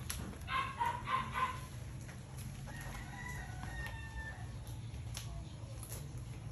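Rooster crowing: a quick run of crowing notes about half a second in, then a fainter, longer held crow around the middle.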